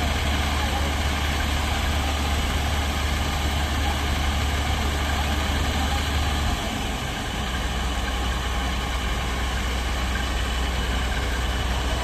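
Combine harvester's diesel engine running steadily with a deep low hum while its unloading auger pours grain out of the spout. About halfway through, the hum dips briefly and settles a little lower.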